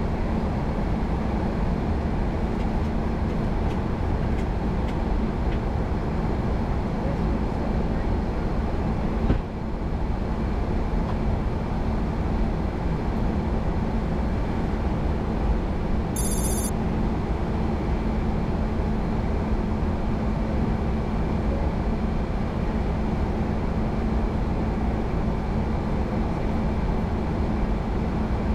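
Boeing 737-800 flight-deck noise in flight: a steady rush of airflow and engine drone with a constant low hum. About halfway through comes a brief high-pitched electronic tone.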